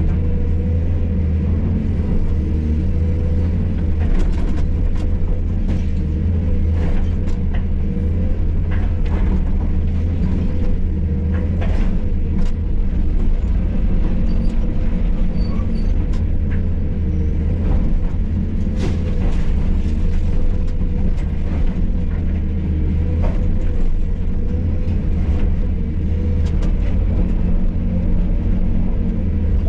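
Hydraulic excavator's diesel engine running steadily, heard from inside the cab, with scattered knocks and clatter from the machine working demolition rubble.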